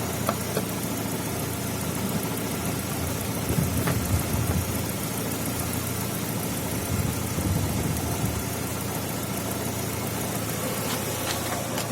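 Chevrolet Lacetti 1.6 four-cylinder petrol engine, freshly overhauled, idling steadily.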